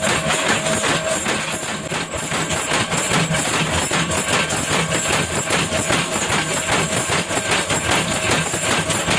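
Factory machinery running with a steady, dense clatter of rapid fine clicks.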